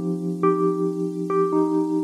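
Soft background music: keyboard notes struck a little under once a second over a held chord.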